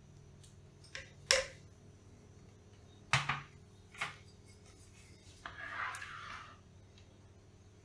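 A few sharp knocks and clinks of kitchen dishes or utensils being handled, the loudest a little over a second in, followed by a short scraping rustle about six seconds in.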